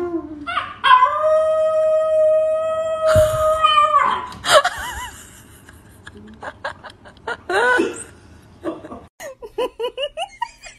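Small curly-coated dog howling: one long held howl starting about a second in, then shorter wavering howls.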